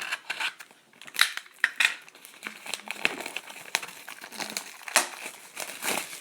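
Plastic shrink wrap crinkling and tearing as a sealed trading card box is unwrapped and opened, a dense run of irregular crackles.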